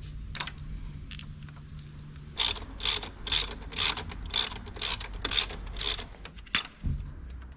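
Ratchet wrench loosening the single bolt that holds the intake air temperature sensor on an Audi 1.8T engine. A few clicks, then about eight short ratcheting strokes at roughly two a second, and one last click.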